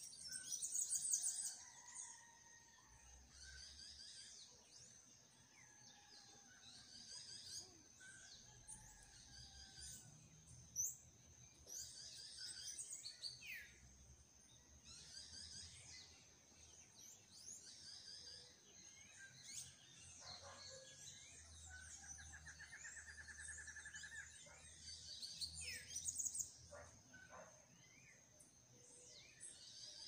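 Faint outdoor birdsong: small birds chirping in repeated short high phrases, with a few lower calls and one trill about two-thirds of the way through, over a faint steady high-pitched hum.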